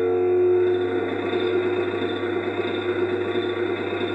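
Coin-operated Scoop kiddie ride's motor and drive wheels running underneath the moving ride, a steady rumble over a low electrical hum. The last held note of the ride's theme tune rings out and fades in the first second.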